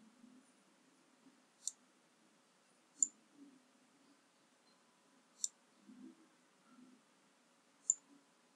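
Computer mouse clicking four times, single sharp clicks a second or two apart, over faint low background noise.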